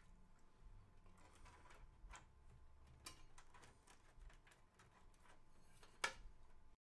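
Faint scattered clicks and taps of small plastic and metal parts being handled and fitted at the back of a PC case, with one sharper click about six seconds in. The sound cuts off abruptly just before the end.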